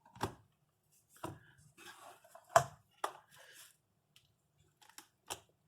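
Hands working on an opened laptop's new screen panel and its connector tape: a series of light clicks and taps with some rustling, the loudest a sharp knock about two and a half seconds in.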